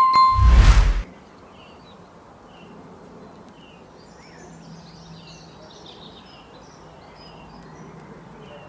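A brief tone and a loud, low rumbling burst in the first second, then many small forest birds chirping in short high notes over a steady outdoor hiss, with a faint low buzz in the middle.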